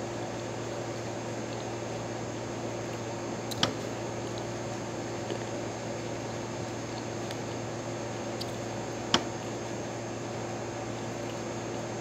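Air conditioner running with a steady hum and hiss, louder than the faint sounds of grapes being eaten. Two sharp clicks stand out, a little over three and a half seconds in and again about nine seconds in.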